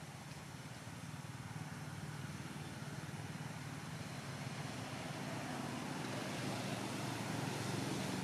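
Steady low rumble of a motor vehicle engine, growing gradually louder.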